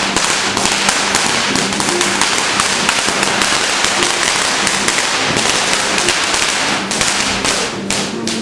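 Fireworks crackling: a dense, rapid run of small sharp pops that thins out to a few separate pops near the end.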